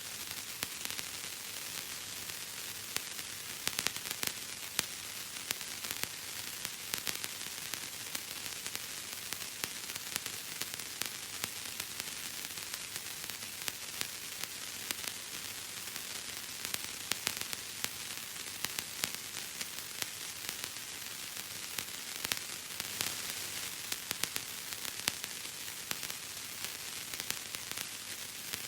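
Bubble wrap being squeezed and popped: a dense, unbroken crackle of many small pops and snaps over a steady hiss.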